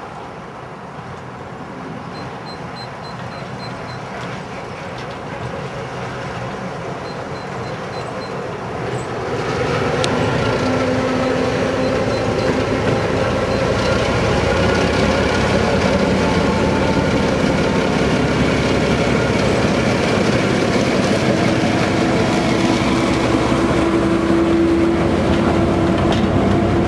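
LMS 'Jinty' 0-6-0 steam tank engine 47327 hauling a train of coaches past. The sound grows louder as it approaches, then becomes much louder about ten seconds in and stays loud as the coaches roll by on the rails.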